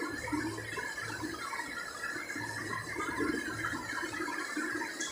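Marker pen writing on chart paper, an irregular scratching that comes and goes with the pen strokes.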